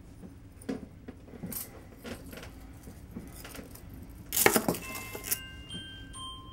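Scattered small clinks and knocks, with a louder metallic clatter about four and a half seconds in. Near the end, single bell-like notes of mallet-percussion music begin.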